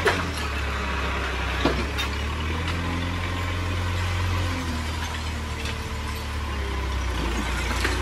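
JCB backhoe loader's diesel engine running steadily under load as its front bucket pushes into and lifts a pile of construction debris, with a few clunks of rubble shifting about two seconds in.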